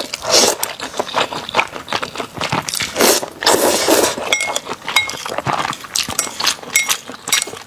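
Close-miked eating of Nanchang mixed rice noodles: slurping about half a second in and again around three to four seconds in, with many wet mouth clicks and chewing throughout. Two short clinks, chopsticks against the bowl, come in the middle.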